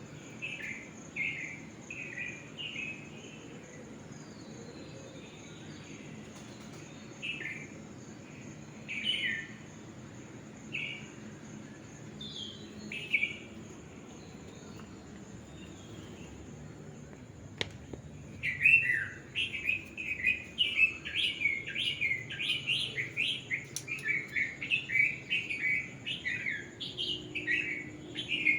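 Unidentified small birds chirping: short, quick, downward-sweeping chirps come a few at a time at first, then run together in a dense stream of rapid chirping from about two-thirds of the way through.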